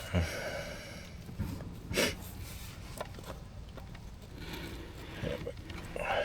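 A few sharp knocks and clicks of metal parts and hand tools being handled while working on the side-by-side's engine, with one right at the start, one about two seconds in and one about three seconds in.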